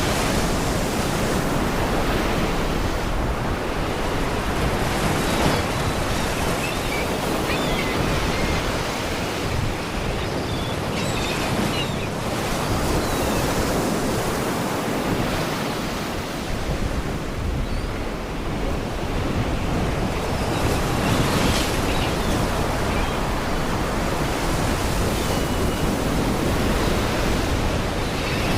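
Sea waves washing against rocks: a continuous surf rush that swells and eases gently, with faint short gull cries now and then.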